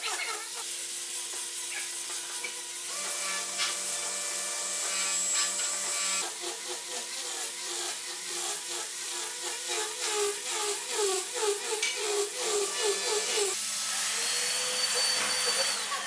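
Electric angle grinder with a sanding disc sanding a carved wooden car body: a steady motor whine with the rasp of the disc on the wood, the pitch wavering as the disc bears on the surface. A higher whine comes in near the end.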